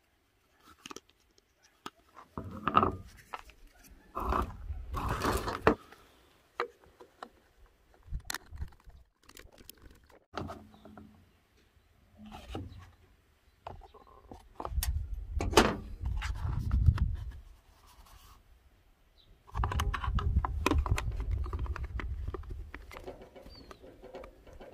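Hard plastic scooter parts, a cooling fan and fan shrouds, being handled and fitted: scattered scrapes, clicks and knocks, with several stretches of low rumbling handling noise.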